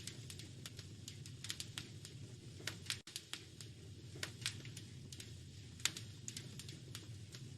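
Wood fire crackling in a fireplace: irregular sharp pops and snaps over a steady low rumble of the flames. The sound cuts out for an instant about three seconds in.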